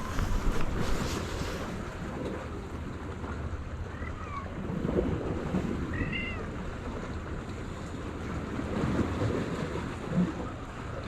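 Sea waves washing on the shore, with wind rumbling on the microphone. A couple of short, faint high calls come through about four and six seconds in.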